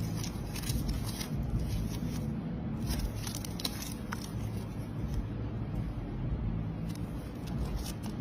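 Clusters of crackling clicks from something being pressed and broken apart: one at the start, one about three seconds in and one near the end, over a steady low rumble.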